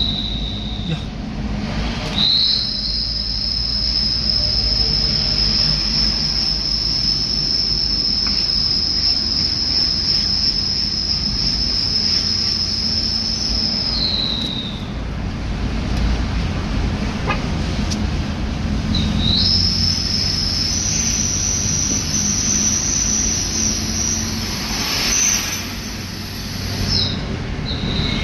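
Steady road and engine rumble of a moving car. Over it, cicadas call in long, high, steady drones that glide up as they start and down as they stop: one from about two seconds in to about fourteen seconds, another from about nineteen seconds to twenty-seven.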